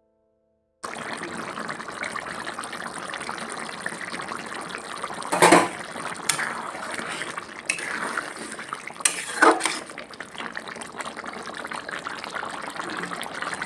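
Marinated mutton sizzling and bubbling in oil and masala in a kadai, a steady hiss as the meat browns for kosha mangsho, with two louder sharp sounds about five and nine seconds in.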